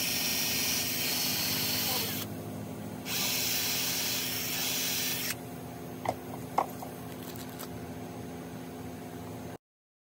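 Cordless drill running into a wooden post in two bursts of about two seconds each, with a harsh hissing rush. Two sharp clicks follow a little after six seconds in.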